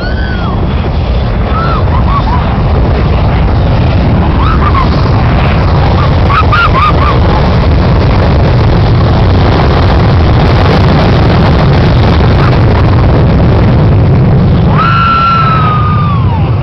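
Jet airliner's engines at takeoff thrust blasting exhaust across the beach: a loud, steady roar with the blast wind buffeting the microphone. Brief yells come through a few times, and a longer one near the end.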